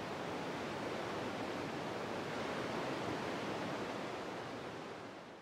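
A steady, even rushing noise with no pitch or rhythm, fading out near the end.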